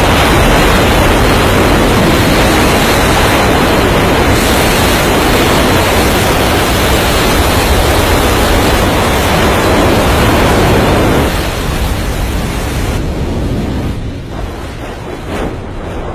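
Heavy surf and wind: a loud, even rush of big waves breaking and spraying over rocks, with wind buffeting the microphone. It eases about eleven seconds in and is quieter over the last few seconds.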